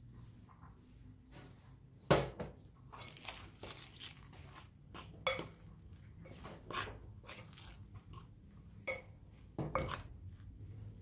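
Metal spoon stirring flour into a thick mash of potato and broccoli in a glass mixing bowl, with irregular knocks and scrapes against the glass; the sharpest knock comes about two seconds in.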